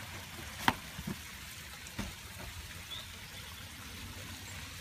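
Steady rushing of a backyard pond waterfall, with one sharp click just under a second in, two fainter knocks after it, and a short high chirp about three seconds in.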